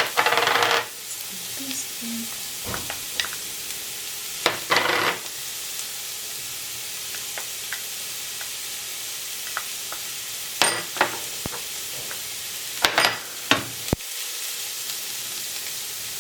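Onions and peppers sizzling in hot oil in a pot, with a spoon stirring and clattering against the pot in a few short loud bursts.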